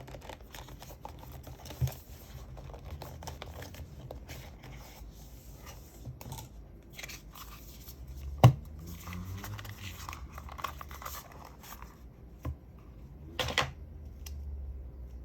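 Unboxing handling: packaging being rustled and torn open, with a few scattered knocks, the sharpest about eight and a half seconds in.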